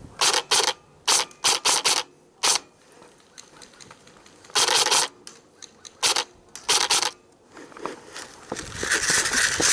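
Airsoft gun firing: a string of sharp single shots in the first two and a half seconds, a short burst about four and a half seconds in, then a few more shots. A rush of noise rises near the end.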